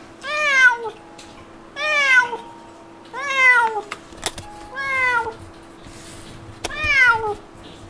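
Domestic cat shut in a pet carrier meowing five times, a call about every second and a half, each meow rising then falling in pitch: a cat's complaining in the carrier.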